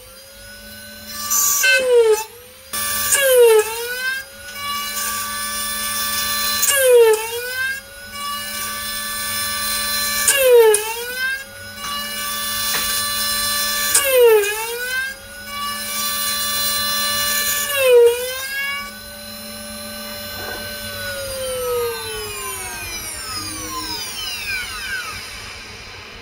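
Desktop CNC mill spindle whining as a 3.25 mm drill cuts into an aluminum mold block. Its pitch dips sharply and recovers each time the drill bites, about every three and a half seconds. Near the end the spindle winds down in a long falling whine.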